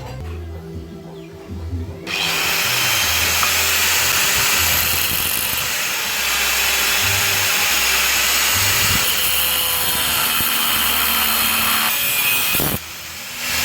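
A power tool running steadily, starting about two seconds in and cutting off near the end, over background music with a low bass line.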